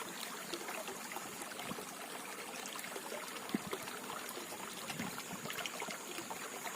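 Flowing water trickling and splashing steadily, with many small ticks and one sharper click about halfway through.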